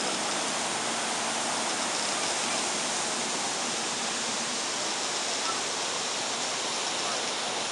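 Steady rush of falling and flowing water from a waterfall and its creek, an even roar with no breaks.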